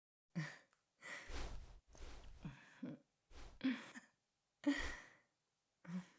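A person's breathy sighs and gasps: about seven short, irregular breaths in quick succession, several ending in a brief falling vocal tone.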